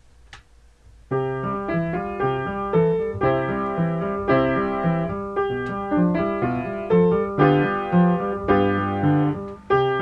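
Background piano music that starts about a second in: a flowing melody over repeated chords.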